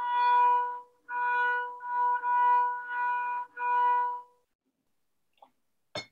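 Double bass bowed on one high, steady note in about five separate strokes, stopping about four and a half seconds in. A single sharp knock follows near the end.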